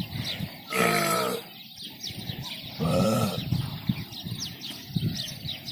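Cows mooing: two short, low moos about two seconds apart. Small birds chirp faintly throughout.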